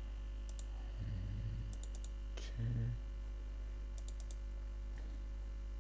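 Computer mouse clicks in small quick clusters, including a rapid group of clicks about four seconds in as a program is opened, over a steady low electrical hum.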